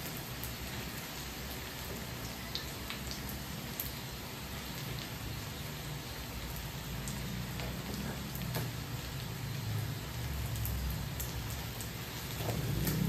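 Glutinous rice cooking in a large aluminium wok: a steady sizzling hiss with scattered small crackles and clicks.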